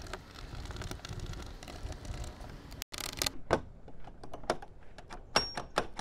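Mounting screws being driven by hand into an RV entry-door lock: a screwdriver scraping and clicking on the screws, then a run of sharp, separate clicks in the second half.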